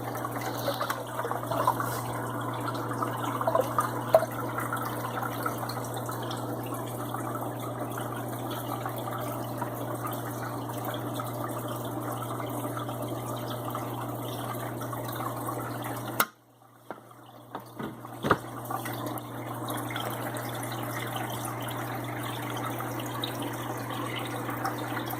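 Water splashing and running into an aquarium over a steady low pump hum, with a few sharp splashes in the first few seconds as the fish and their water are poured into the tank. The sound cuts out abruptly about two-thirds through and comes back a few seconds later.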